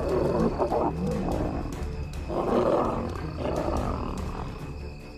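Lions snarling and growling in several harsh bursts, loudest a little past the middle, over a low documentary music score: a lioness defending her cub's den against invading male lions.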